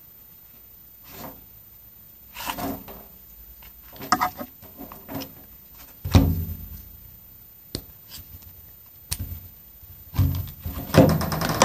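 Handling noises from a plastic mini 12 V air compressor and its hose being moved about and set down on a wooden table: scattered knocks, thumps and clicks, the loudest thump about six seconds in, with a buzzing sound near the end.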